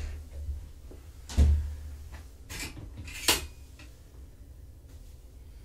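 Three knocks and clatters of a pet carrier being handled, about a second and a half in and twice more a little later. The first is the loudest, with a low thud.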